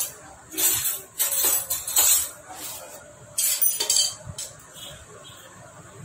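Small metal parts clinking and rattling as the carburettor on a scooter engine is handled, in four or five short bursts over the first four seconds, then quieter.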